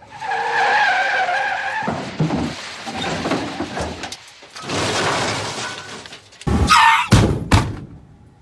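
Car crash sound effect: a wavering tyre screech for about two seconds, then a stretch of skidding noise, then a loud crash of several hard impacts close together about six and a half seconds in.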